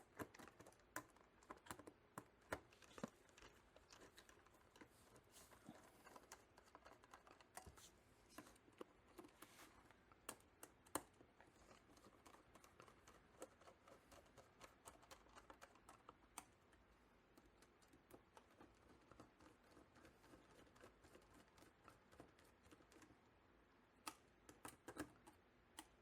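Faint, irregular small clicks and ticks of three stainless-steel 6-32 screws being driven in by hand to hold the trackball housing's cover, the parts knocking lightly as they are handled.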